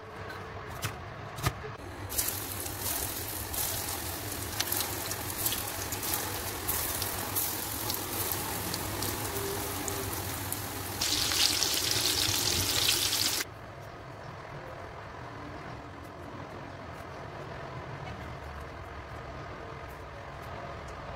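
Knife clicks on a wooden cutting board, then köfte meatballs sizzling and crackling in hot oil in a frying pan, louder for its last couple of seconds before cutting off suddenly. After that a quieter steady hum with occasional light clicks.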